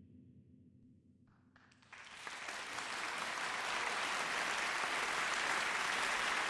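Audience applause, breaking out about two seconds in after a faint low hum, growing louder and then holding steady.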